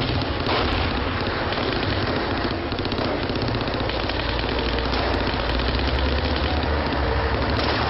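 War-film battle soundtrack: a dense, continuous crackle of small-arms gunfire over a low rumble that swells about five to seven seconds in.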